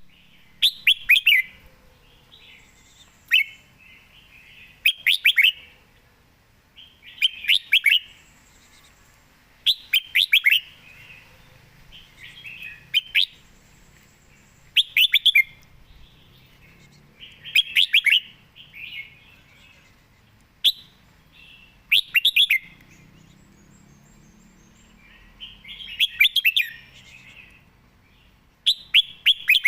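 Red-whiskered bulbul singing. It gives short, quick song phrases about every two to three seconds.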